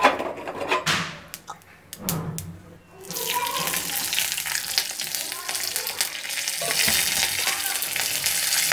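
Hot oil is poured into a steel tempering ladle holding mustard seeds and curry leaves and starts sizzling and crackling about three seconds in, after a few clinks and knocks. The sizzle then keeps on steadily.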